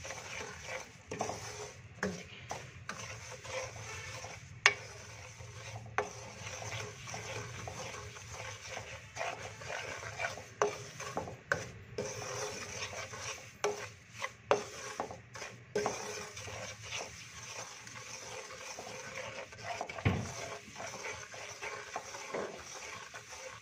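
Wooden spoon stirring and scraping semolina roasting in ghee in a non-stick kadhai, with a faint sizzle of the hot ghee. Scattered clicks and knocks of the spoon against the pan, the sharpest a few seconds in.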